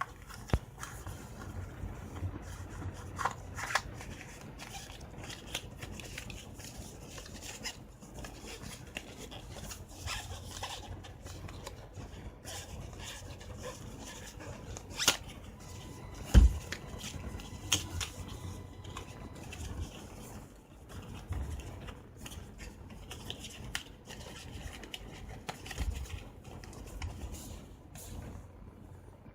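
Hands unpacking and handling a set of cards: scattered rustling, scraping and small clicks, with one louder low thump about halfway through.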